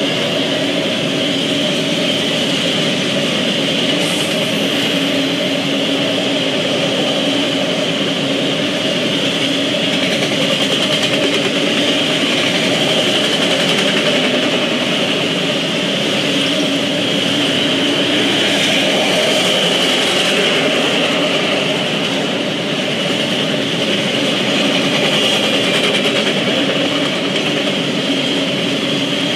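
Freight train of autorack cars rolling steadily past, a continuous wheel-on-rail noise heard through a trackside webcam's microphone.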